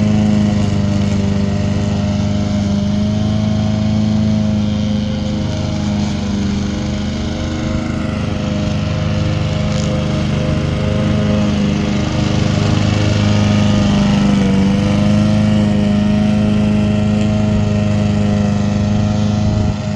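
Homemade remote-control lawn mower running steadily, a continuous pitched hum whose pitch sags slightly a few times.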